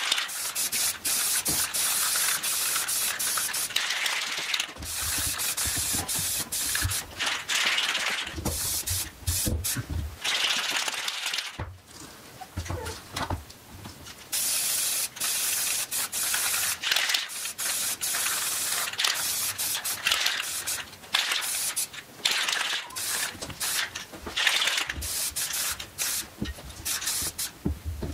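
Aerosol spray paint can hissing in repeated passes, broken by short gaps, as a base coat goes onto a rifle. Sharp clicks and low knocks come between and during the passes.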